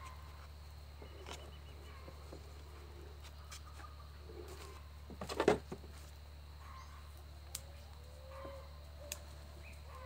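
Pruning scissors snipping through a bonsai branch about halfway through, a quick cluster of sharp clicks, with two lighter single snips later. A dove coos faintly near the end.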